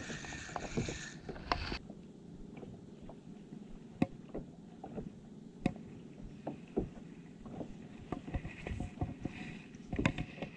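Water lapping against a kayak hull, with a brief hiss near the start. Scattered light clicks and knocks come from hands handling a spinning rod, reel and hook.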